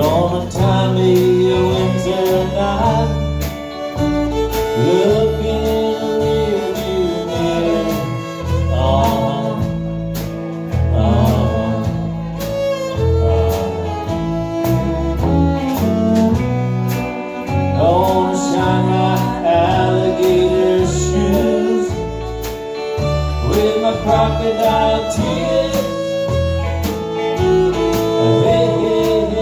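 Live country band playing a song: electric guitar, bass and drums with a fiddle and a woman singing.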